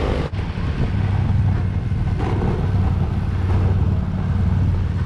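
Motorcycle engine running steadily at riding speed, heard from the rider's own seat with road and wind noise on the camera microphone. The sound drops out for an instant about a third of a second in.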